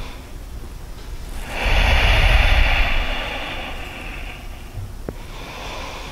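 A long audible exhale of about two seconds, starting a second and a half in, with the breath buffeting the microphone.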